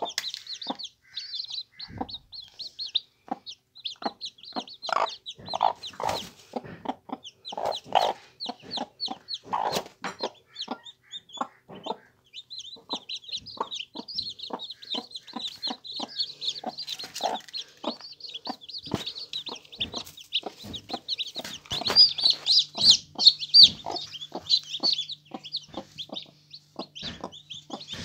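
Newly hatched chicks peeping nonstop, high-pitched and growing louder in the second half, mixed with a broody hen's short low clucks repeated again and again.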